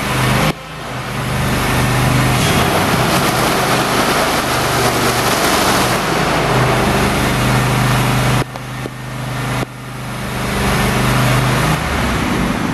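Kohler engine of a Brush Hog zero-turn commercial mower running as the mower drives and turns. Its sound drops off sharply about half a second in and again around eight and a half seconds in, then builds back up.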